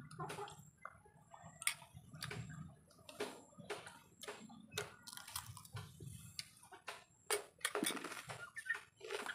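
Close-miked chewing of a mouthful of rice and fish eaten by hand: a run of wet mouth clicks and lip smacks, several a second. Near the end, a drink from a plastic mug is swallowed.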